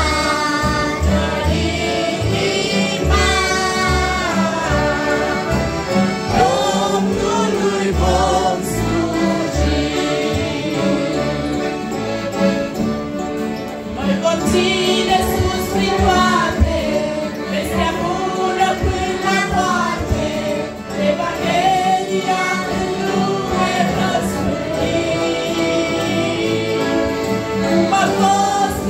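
A family group singing a Christian hymn in several voices, a woman's voice at the microphone leading, accompanied by piano accordions and guitars. The singing and steady accordion chords run on without a break.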